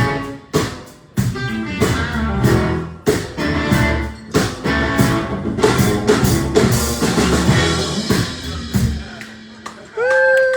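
Rock band playing, drum kit and guitar, the music stopping about nine seconds in on a held note. A voice calls out briefly near the end.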